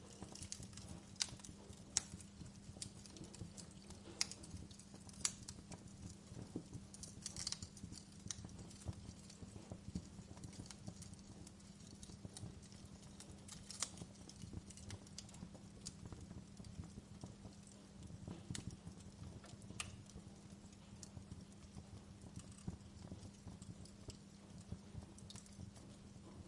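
Wood fire crackling in a fireplace: irregular sharp pops and snaps, a few louder than the rest, over a low steady hum.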